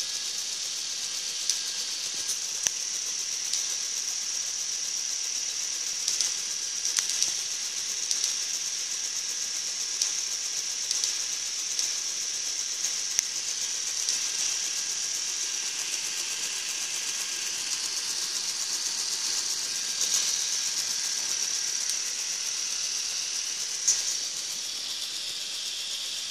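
K'NEX model of a Fairbanks Morse engine running: its plastic gears, shafts and flywheel whir steadily, high-pitched, with scattered clicks and rattles from the meshing gears.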